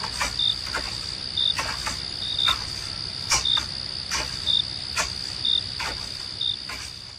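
Night insects chirping: a steady high trill with short chirps repeating about once a second and sharp clicks now and then, fading down near the end.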